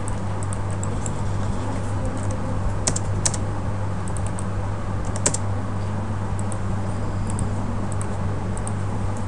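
Computer keyboard being typed on: scattered single key clicks, a few louder ones about three and five seconds in, over a steady low hum.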